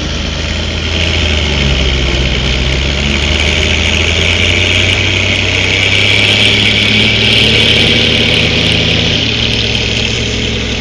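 Ursus tractor's diesel engine running steadily under load as it pulls a loaded manure trailer past, the sound swelling as it goes by around the middle and easing off near the end.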